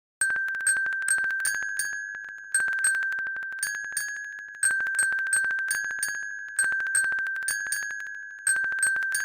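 A small struck metal chime or bell-like percussion instrument playing a steady rhythm on one high note, about three strikes a second, each note ringing briefly and fading before the next.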